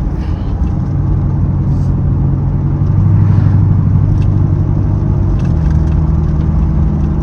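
Camaro SS's V8 engine running steadily under way, a low drone that gets a little louder about three seconds in and changes pitch a couple of seconds later.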